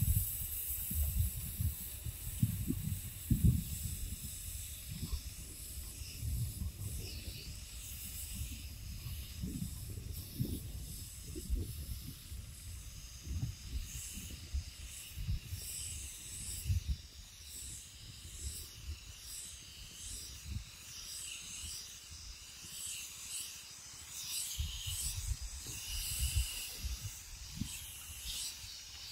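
Steady hiss of a high-pressure spray from an HTP power sprayer's spray gun, with irregular low thumps throughout.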